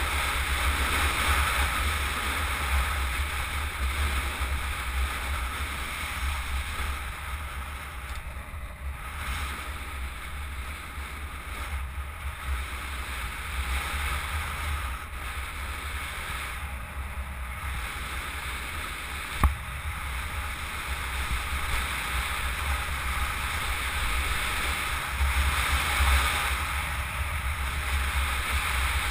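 Wind rushing over a helmet-mounted camera's microphone at speed, a steady rush with heavy low buffeting. A single sharp click about two-thirds of the way through.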